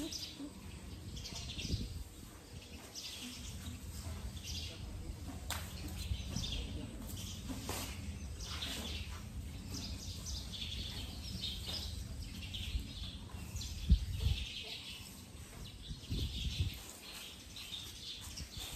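Small birds chirping on and off over a low steady rumble, with one sharp thump about three-quarters of the way through.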